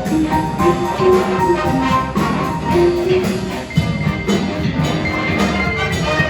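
School jazz band playing: a melodic horn line over bass and steady drums.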